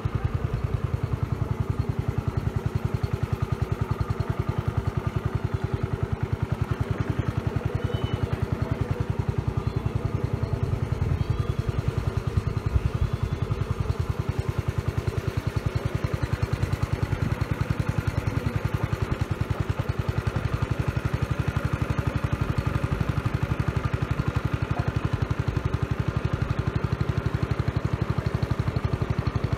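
A motor vehicle's engine running steadily at an even speed, with a fast, regular pulse and no change in pitch.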